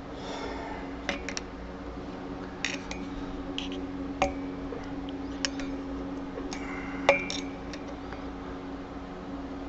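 Irregular light metallic clinks and scrapes of a steel punch and then a flathead screwdriver inside the hub bore of a Harley-Davidson Dyna front wheel. The tool is feeling for the lip of the spacer between the wheel bearings, to knock it off centre. The loudest clink comes about seven seconds in, over a steady low hum.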